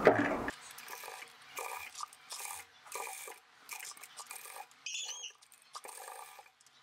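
Fabric rustling and rubbing in short, irregular bursts as a sleeve hem is folded and fed through a sewing machine. A louder sound cuts off abruptly about half a second in, and a brief high chirp comes about five seconds in.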